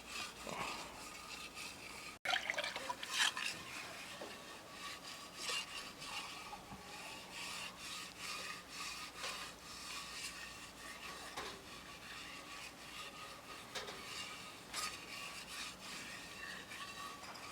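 Irregular rubbing and scraping strokes from cooking work done by hand, loudest a couple of seconds in, with a faint steady hum behind them.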